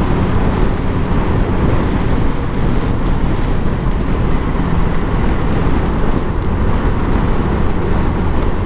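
Motorcycle cruising steadily at road speed: wind rushing over the camera's microphone, with the engine running evenly underneath.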